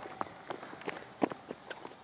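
Footsteps on pavement: a run of short, sharp steps, roughly two to three a second.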